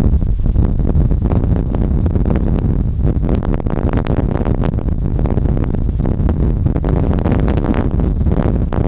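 Strong wind buffeting the microphone: a loud, steady low rumble that swells in gusts.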